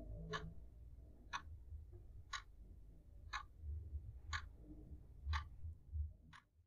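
Clock ticking faintly, one sharp tick a second, with a faint low rumble underneath.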